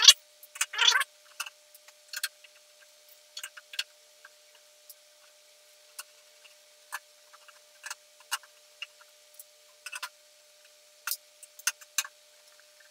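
Screwdriver taking the screws out of an amplifier's metal cover: scattered small metallic clicks and ticks at irregular intervals. A faint steady hum runs underneath.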